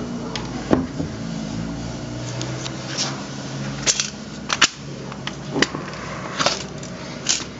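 An MDF kitchen cabinet's corner door being swung closed and opened on its concealed cup hinges: a series of about seven sharp clicks and knocks as the hinges snap and the door meets the cabinet frame.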